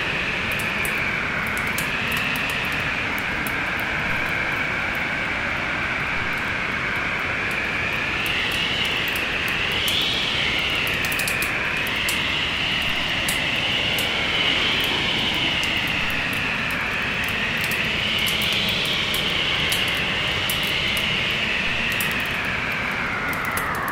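Storm wind blowing steadily, with a whistle that slowly wavers up and down in pitch, over the scattered crackle of a wood fire.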